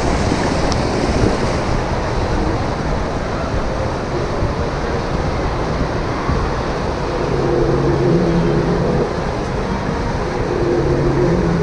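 Steady rushing outdoor background noise with a heavy low rumble. In the second half a few held low tones come and go, stepping up and down in pitch.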